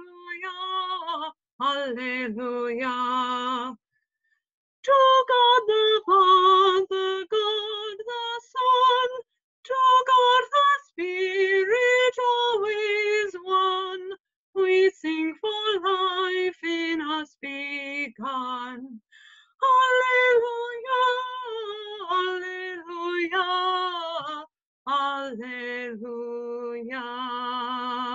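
A woman singing solo without accompaniment: a slow melody in phrases with long held notes and short breaks between them.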